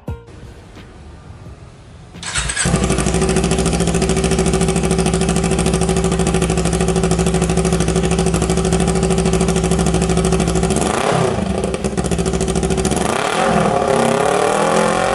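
2018 Kawasaki Ninja 250 parallel-twin engine through a Corse Project carbon slip-on muffler: it starts about two seconds in and settles into a steady idle. About eleven seconds in the throttle is blipped, and near the end it is revved with rising pitch.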